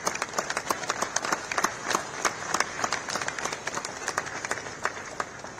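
A crowd applauding, many hands clapping unevenly and overlapping, thinning out near the end.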